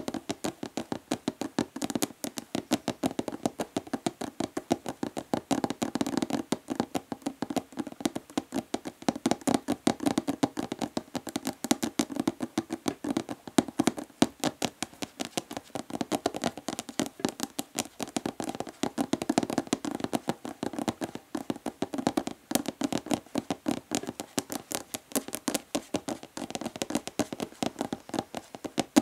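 Fast, continuous tapping of natural fingernails on a hollow plastic body lotion bottle: a dense run of sharp clicks, several a second, each with a short hollow ring.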